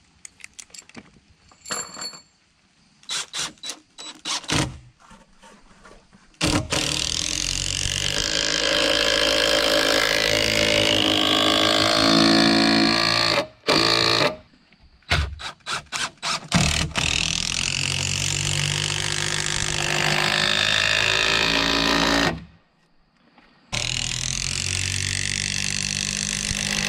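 Cordless DeWalt impact driver sinking long HeadLok structural screws into a timber beam, hammering steadily in long runs of several seconds as each screw pulls the post in tight. The first few seconds hold only clicks and short trigger bursts while a screw is set; the driving stops briefly twice, then starts again near the end.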